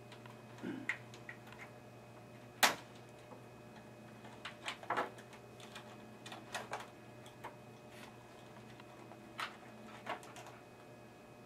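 Irregular plastic clicks and knocks as cable connectors and clips are worked loose inside a desktop computer case, with one sharper knock about two and a half seconds in.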